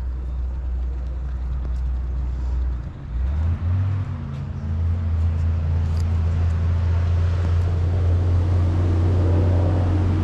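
An engine running steadily close by. About three seconds in its pitch rises, then holds steady.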